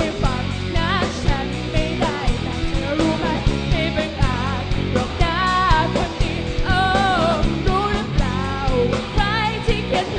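A rock band playing live: a lead vocalist singing over electric guitars, bass guitar and a drum kit. The held sung notes waver in pitch.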